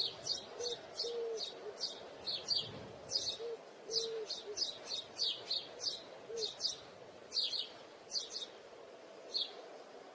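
Bird chirping: many short, quick, high chirps, several a second, thinning to a few scattered chirps after about seven seconds. A few short, low held notes sound underneath in the first half.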